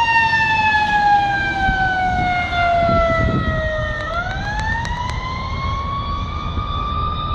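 Ambulance siren on a slow wail: the tone falls steadily for about four seconds, then turns and climbs again. The vehicle's engine and road noise run underneath.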